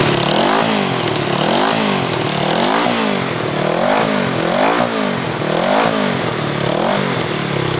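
Honda CB360T air-cooled parallel-twin engine running just after it catches. Its revs swing up and down about three times every two seconds. This is the engine's first run after sitting over eight years, on a fresh points, timing and valve tune-up.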